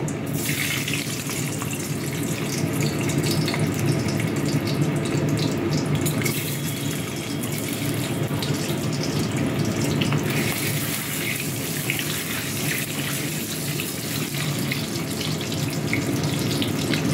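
Peeled hard-boiled eggs frying in hot oil in an aluminium kadai, with a steady sizzle.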